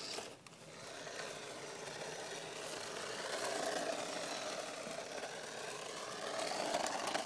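Toy radio-controlled car's small electric motor and gears whining as it drives over asphalt, the pitch rising and falling as it speeds up and slows, then cutting off suddenly near the end.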